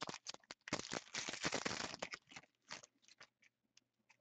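A trading card pack's wrapper being torn open and crinkled: a dense crackle for about two seconds, then a few scattered clicks and rustles as it is handled.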